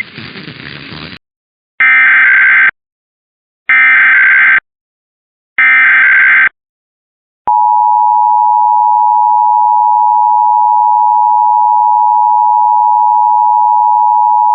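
Emergency Alert System test signal: three identical warbling SAME header data bursts, each just under a second long, about a second apart. Then, from about halfway through, the steady two-tone EAS attention signal.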